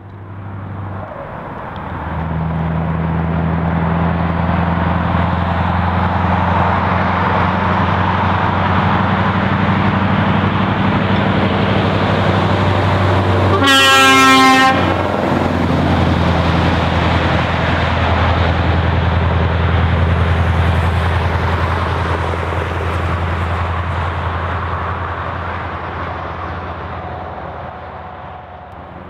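Straight-piped 14-litre V8 of a Scania 144G 530 truck driving past, its steady exhaust note growing louder and then fading as it moves away. One horn blast of about a second sounds midway.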